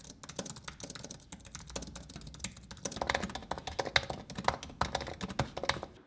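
Typing on a 2015 Apple Magic Keyboard's scissor-switch keys: a quick, quiet stream of key clicks, a little louder in the second half.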